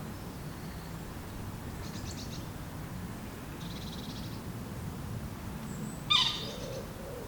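Wild birds calling by the water: short, high rattling calls about two and four seconds in, then a loud sharp call about six seconds in. Low hooting calls follow near the end, over a steady low background noise.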